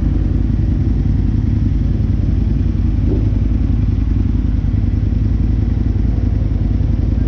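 Sport motorcycle engine running steadily at low revs as the bike rolls slowly at walking pace.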